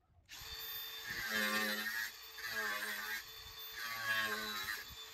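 Angle grinder starting up and cutting through a fence post, a steady high whine and hiss that surges about four times as the disc bites into the post.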